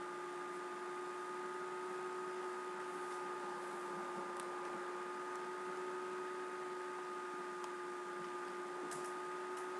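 Steady electrical hum of several constant tones over a low hiss, with a few faint clicks in the second half.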